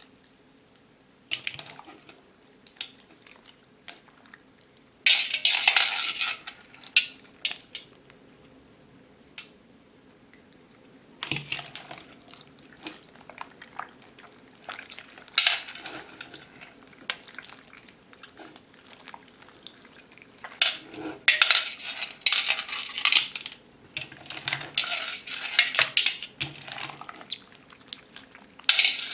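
Hard plastic pearl beads clattering and clinking against a container in irregular bursts, with quieter gaps between them.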